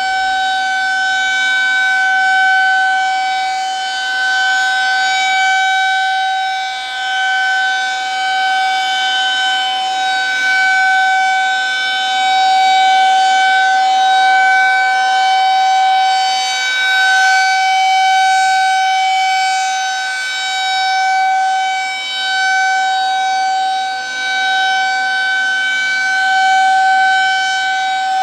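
Federal Signal 2001-SRNB rotating electromechanical siren sounding a steady alert tone, held at one constant pitch. Its loudness swells and fades slowly as the rotating horn sweeps past.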